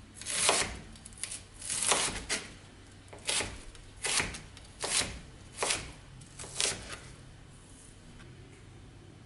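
Chef's knife slicing through a halved onion on a plastic cutting board: about nine crisp cuts, roughly one a second, ending about seven seconds in.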